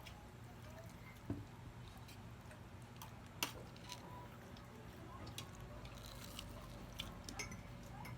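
Quiet meal-table sounds: scattered light clicks and clinks of dishes and utensils, two of them sharper, over a steady low hum.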